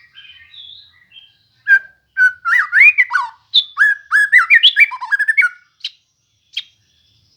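White-rumped shama (murai batu) singing a loud burst of quick, sweeping whistled notes mixed with sharp clicks, ending with two short single notes.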